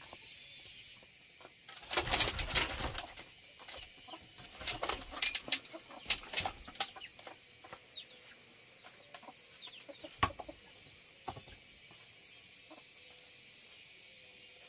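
Chickens: a loud flurry of wing-flapping about two seconds in, then scattered rustles and knocks, with faint short chirps.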